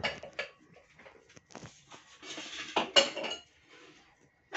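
Scattered light clinks and knocks like dishes or cutlery, with a louder knock about three seconds in.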